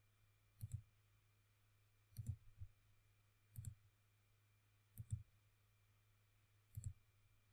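Computer mouse clicking: about six faint, sharp clicks, some doubled, spaced a second or more apart, as wires are placed in schematic software.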